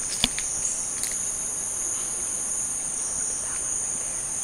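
Steady, shrill chorus of insects holding several high tones at once, with a few sharp clicks in the first second.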